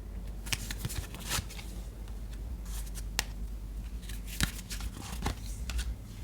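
Tarot cards being handled and shuffled: irregular soft card clicks and rustles.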